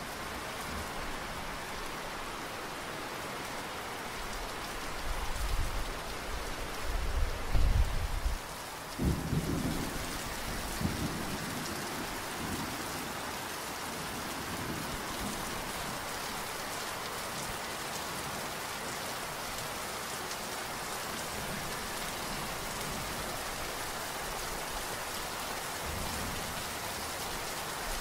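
Steady rain hissing throughout. A low roll of thunder rises about five seconds in, is loudest near eight seconds and dies away by about eleven seconds.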